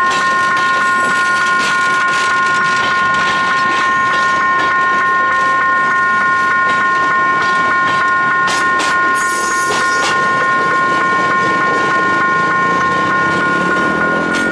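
Railway coaches rolling past, their wheels clacking rhythmically over the rails. Over it runs a steady high ringing tone of several pitches that does not let up.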